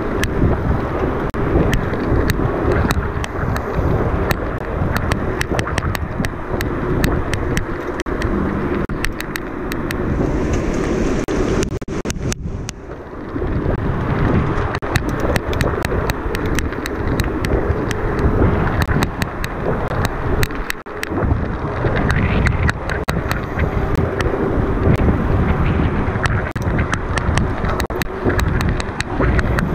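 Mountain bike ridden over rough trail, rattling steadily with many small knocks, with wind buffeting the microphone.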